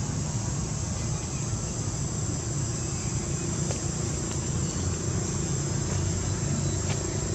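Steady outdoor background: a constant high-pitched insect drone over a low rumble.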